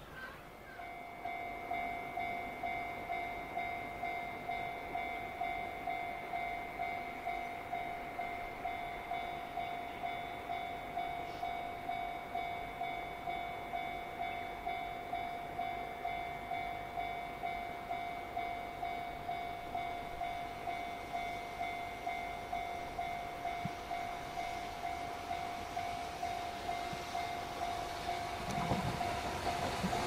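Japanese level crossing warning bell starts ringing just after the start and keeps up a steady electronic 'kan-kan' about twice a second. Near the end, the rumble of an approaching freight train hauled by an EF210 electric locomotive rises under it.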